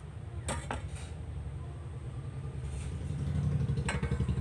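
Low, steady engine rumble with a fine even pulse, swelling about three seconds in, with a few sharp clicks about half a second in and near the end.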